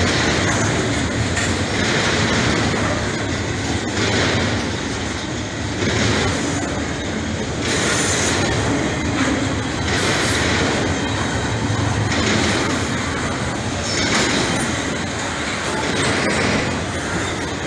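BNSF doublestack intermodal freight train rolling past, mid-train with no locomotive: steel wheels clattering over the rails in a steady rush that swells and fades about every two seconds.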